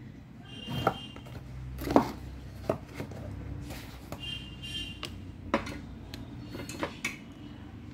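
Small hard clicks and taps of phone parts and tools being handled on a workbench mat during a phone LCD swap, about half a dozen spread irregularly, over a low steady hum.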